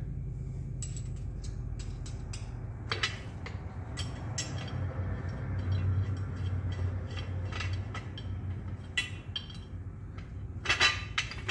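Steel parts of a tubing anchor catcher clinking and knocking as they are handled during assembly, over a steady low hum. The loudest clinks come near the end.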